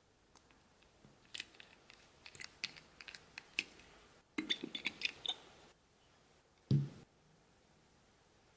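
Small plastic clicks and taps as the white dropper cap of a frosted glass gel-remover bottle is unscrewed and pulled free, with long nails tapping on the bottle, followed by a single dull knock a little after six and a half seconds in.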